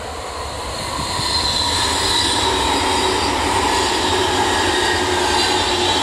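A red electric multiple-unit commuter train passing on the rails. The running noise grows louder over the first two seconds and then holds, with a steady whine at several pitches that falls slightly.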